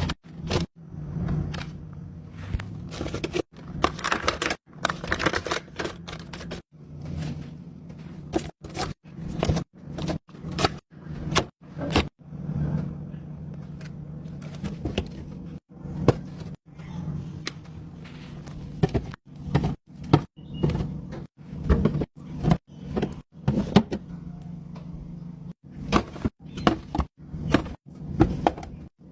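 Restocking a fridge: items handled and set down one after another, giving a quick run of knocks, clatters and scrapes. Brief silent cuts break it up, and a low steady hum runs underneath.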